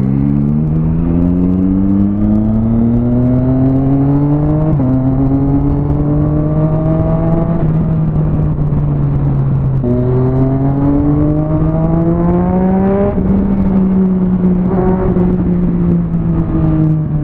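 Motorcycle engine heard from the rider's seat, accelerating with rising pitch and shifting up twice, about five and ten seconds in, then holding a steady pitch and easing off slightly near the end.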